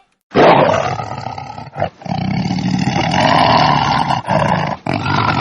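Donkey braying: a long, loud, harsh call broken by short gasps between the drawn-in and pushed-out parts of the hee-haw.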